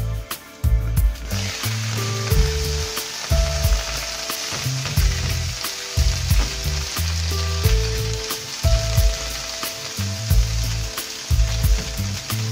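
Chopped onions and peppers sizzling in hot oil in a frying pan, the sizzle jumping up about a second in as the lid comes off, then running steadily while a silicone spatula stirs them. Background music with a bass beat runs underneath.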